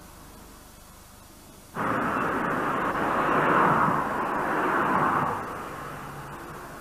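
Faint hiss, then street noise cuts in suddenly about two seconds in: a motor vehicle going by, loudest in the middle and fading near the end.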